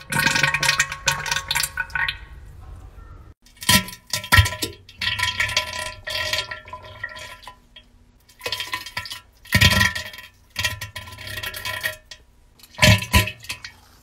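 Wet, sputtering diarrhea sounds: several bursts of liquid splattering and spluttering flatulence, separated by short pauses.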